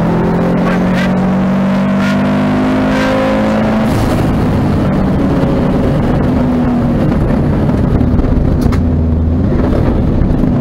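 Rally car engine heard from inside the cabin at speed, under road and tyre noise. It holds a steady high note, changes about four seconds in as the revs drop, then climbs again.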